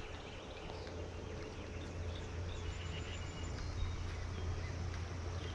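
Outdoor ambience: a steady low wind rumble on the microphone, with a few faint short bird chirps.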